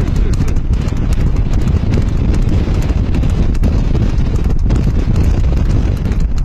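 Hoofbeats of a ridden horse, a dense run of clicks, under a heavy rumble of wind buffeting the microphone.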